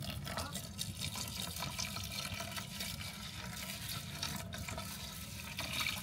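Water poured from a plastic bottle into a metal mess tin of rinsed rice, splashing and filling the tin to cook the rice. It runs steadily and gets a little louder near the end.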